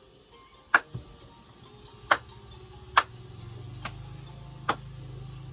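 Four sharp clicks at uneven intervals over a low steady hum that builds up about halfway through.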